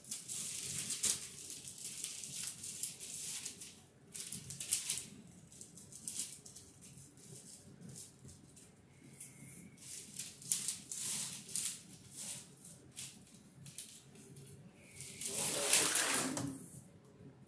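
14-2 electrical cable sliding and scraping through a PVC plastic wiremold channel as it is pulled along, in short bursts of plastic rustling and rubbing. The loudest, longest burst comes near the end, when the channel and cable are handled together.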